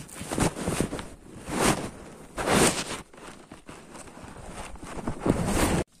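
Footsteps crunching on dry, stony ground, a handful of uneven steps with the loudest about two and a half seconds in and again near the end, cut off abruptly just before the end.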